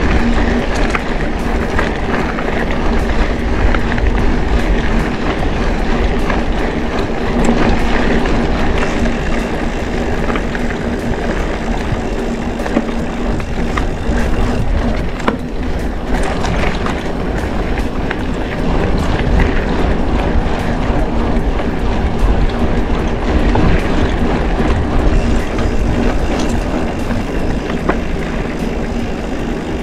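Mountain bike rolling over a rough dirt road: a steady rumble of the tyres on the dirt with constant light rattling of the bike, and wind on the microphone.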